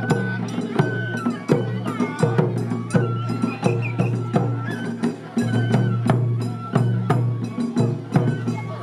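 Japanese festival hayashi played by children: festival drums struck at a steady beat about once every three-quarters of a second, with short held high notes over them.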